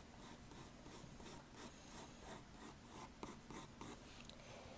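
Faint scratching of a Ticonderoga graphite pencil on paper as a circle is sketched, in a quick run of short, even strokes, about three a second.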